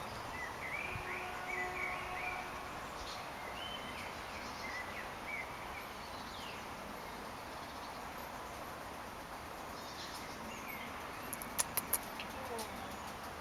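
Birds chirping in short curved calls over a steady background hiss, with a few sharp clicks near the end.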